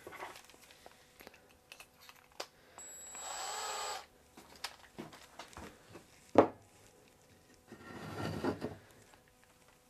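Small clicks of drill bits and tools being handled. About three seconds in, a cordless drill whirrs for about a second with a slightly rising pitch as a bit is set in its chuck. Later there is one sharp knock of a 2x4 block set down on the workbench, then a second or so of wood sliding across the bench.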